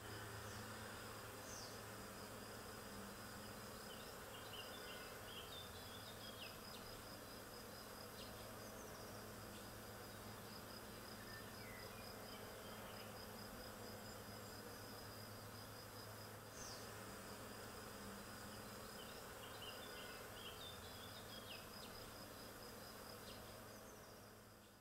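Honeybees buzzing in a faint, steady hum at a busy hive, with a high, steady pulsing chirr behind it and short bird-like chirps twice. The sound fades out at the end.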